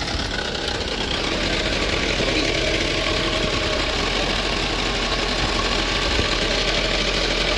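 Mahindra utility vehicle's diesel engine idling steadily close by.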